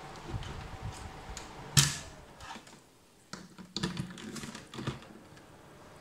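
A plug pulled from a power strip socket with a sharp click, then cord handling and a plug pushed into a plug-in power meter's socket with a cluster of clicks and scrapes. The electric fan's faint steady hum fades out just after the plug is pulled.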